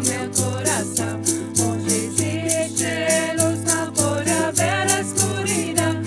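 Several voices singing a folk-style chant together, backed by a strummed nylon-string guitar and a ukulele. Hand rattles keep a steady shaken beat, a little under two strokes a second.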